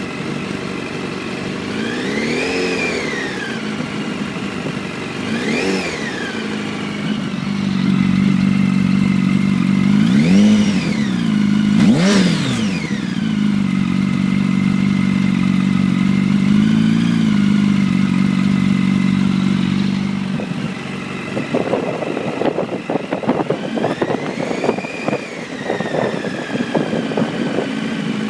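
2006 Yamaha R1's inline-four engine idling through an Arata full titanium exhaust, blipped about six times so the pitch swings up and falls back to idle. In the last several seconds the sound turns choppy and crackly. The owner feels the idle surges a bit.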